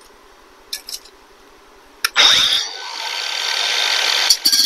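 Cordless angle grinder starting about two seconds in and grinding on metal, a steady high-pitched noise that builds toward the end; a couple of light clicks come before it.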